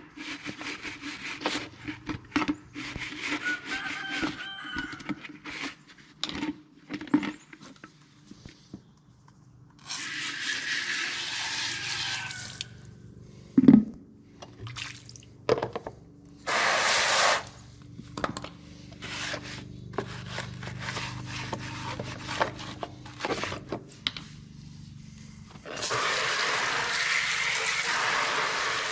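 Water running in three spells, the last starting near the end, as a chicken waterer is filled, between knocks and clatter of the containers being handled.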